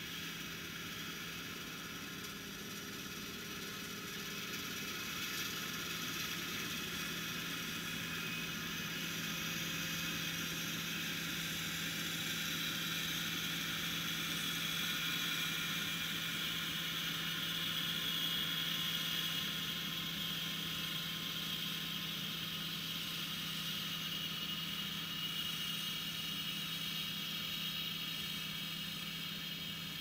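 Vintage Claas combine harvester running steadily close to the microphone: a constant engine and machinery hum with a whirring whine on top, growing a little louder midway.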